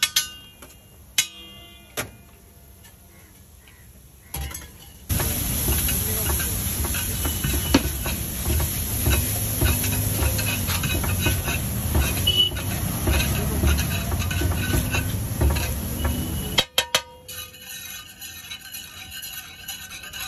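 Metal spatula clanking, chopping and scraping on a large flat iron griddle (tawa) as egg bhurji is cooked. It starts with a few sharp ringing clanks, then after a short lull comes a long stretch of rapid chopping and scraping that stops abruptly near the end.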